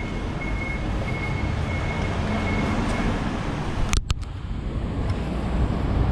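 Steady street traffic rumble, with a faint thin high tone that stops about three seconds in. A few sharp clicks come about four seconds in.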